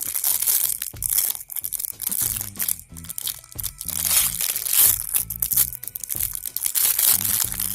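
Plastic wrapping of a LOL Surprise toy package crinkling and tearing in irregular bursts as it is pulled open by hand, over background music.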